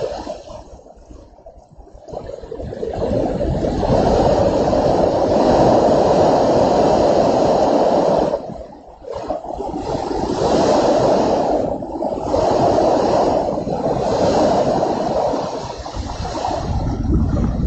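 Strong storm wind rushing in gusts, dropping away briefly about a second in and again about halfway through before surging back.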